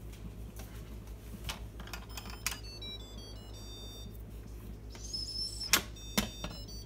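Instant Pot pressure-cooker lid being turned and lifted off: two sharp plastic clicks about half a second apart near the end. Before them, a short run of faint high electronic beeps.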